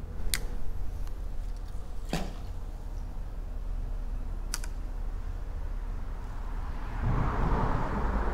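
A few sharp, isolated clicks over a low steady rumble, then from about seven seconds in the rising rush of a vehicle driving across the bridge overhead.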